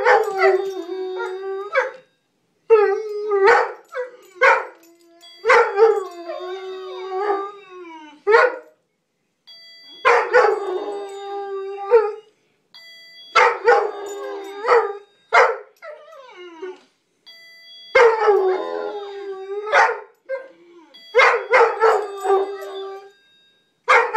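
Dogs howling in repeated bouts of one to two seconds, the pitch sliding up and down, with a few short barks among them.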